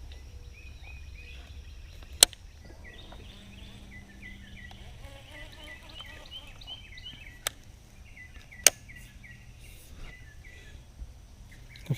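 Birds calling in runs of short, repeated chirps over a steady low rumble, with three sharp clicks or knocks; the loudest click comes about two seconds in.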